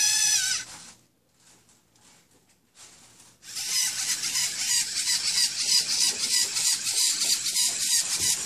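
Small line-following robot's electric drive motors whirring briefly at the start, then after a few seconds of near quiet running on with a high-pitched buzz that pulses rapidly as the robot follows the line.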